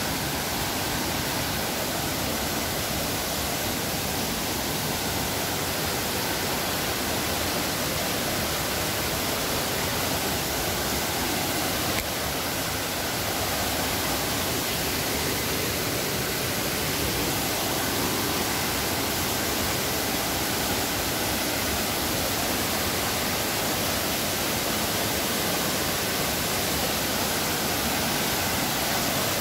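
Steady rush of a waterfall pouring into a rocky plunge pool, with the stream below running over the rocks.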